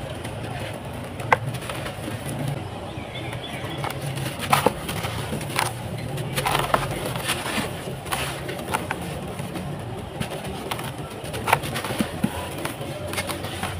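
Dry, dusty sand-cement chunks crushed and crumbled by hand: scattered crisp cracks and a gritty crumble. There are sharp snaps about a second in, around four and a half seconds and near eleven and a half seconds, over a low steady murmur.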